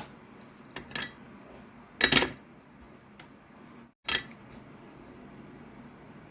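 Clattering knocks as the circuit board with its fitted connector is handled and turned over on the workbench, the loudest clatter about two seconds in and a couple more around four seconds, then only a low room hum.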